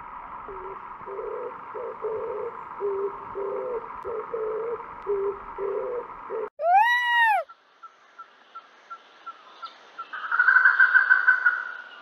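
A series of short, low hooting notes, about two a second, over a steady hum. About halfway in, an Indian peafowl (peacock) gives one loud wail that rises then falls and lasts about a second. A rapid pulsing burst follows near the end.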